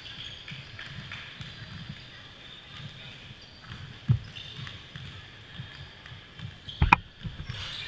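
A basketball thuds once on the hardwood gym floor about four seconds in. Near the end comes a sharp metallic clank with a brief ring as the shot hits the rim, a missed shot that leads to a rebound.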